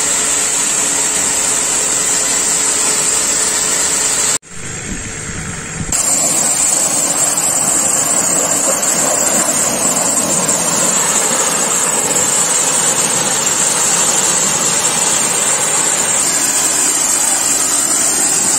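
Global Power GPMK4 commercial pressure washer running, with a steady loud hiss of the high-pressure water jet over the hum of its electric motor and plunger pump. The sound drops lower for about a second and a half around four seconds in, then returns at full level.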